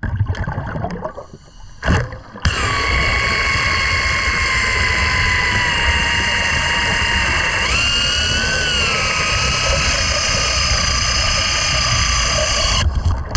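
Pneumatic air tool running under water: after a couple of seconds of irregular noise it starts up with a steady whine over a rushing noise. The pitch sags slowly, then jumps up about halfway through, and the tool cuts out briefly just before the end.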